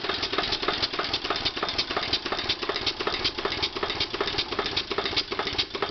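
Small homemade solar steam engine running fast, giving a rapid, uneven ticking clatter many times a second.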